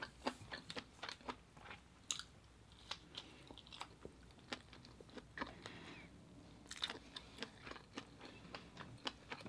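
A person chewing food with the mouth: faint, irregular clicks and small crunches.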